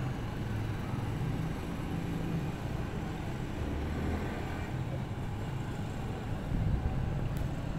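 Steady low rumble of road traffic, rising slightly near the end.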